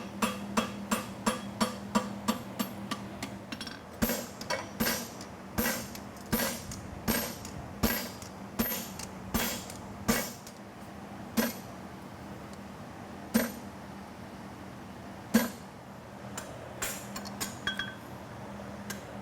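Blacksmith's hammer striking a hot steel horseshoe on the anvil while forging the inside bevel of a hind shoe. A quick run of blows comes first, then slower blows, then single strikes a couple of seconds apart, with a few light taps near the end.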